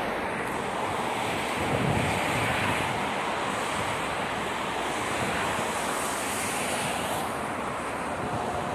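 Wind buffeting the microphone, with an uneven low rumble over the steady rush of road traffic.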